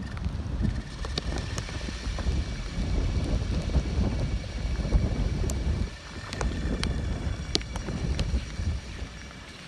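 Tropical-storm wind gusting and buffeting the microphone as a deep, uneven rumble that swells and eases, with a brief lull about six seconds in and a drop near the end. Scattered small ticks sound over it.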